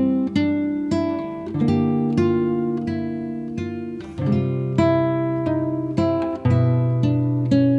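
Background music: acoustic guitar plucking slow notes and chords.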